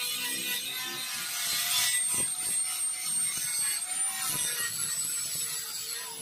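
Angle grinder grinding the painted, rusty edge of an old steel motorcycle body panel: a steady high whine over a grinding hiss, the pitch wavering briefly about four seconds in as the disc is worked along the edge.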